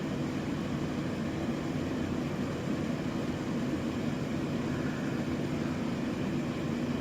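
Steady, even rushing noise with a low hum underneath, unchanging throughout.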